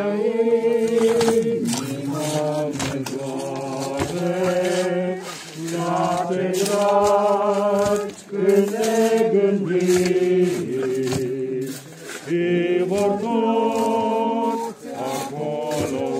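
Voices singing a slow funeral chant in long held notes, phrase after phrase, with short breaks between phrases.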